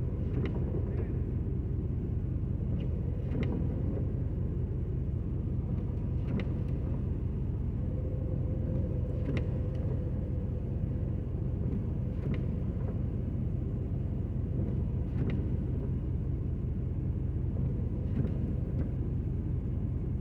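A stopped car idling, heard from inside the cabin as a steady low hum. A faint click comes about every three seconds.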